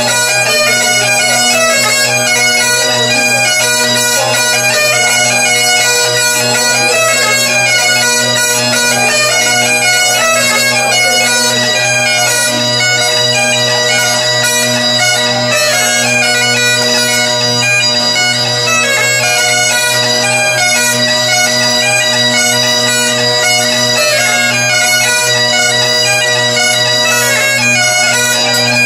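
Two Great Highland bagpipes played as a duet: steady drones under a quick-moving chanter melody.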